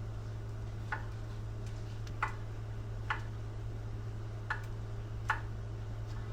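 Five light, irregularly spaced clicks of a kitchen utensil against a hard surface, over a steady low hum.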